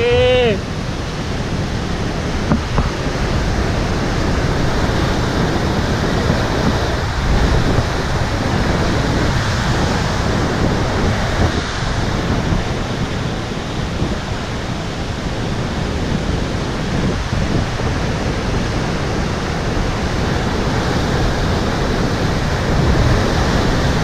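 Heavy ocean surf breaking over coastal rocks: a continuous, steady rush of churning whitewater.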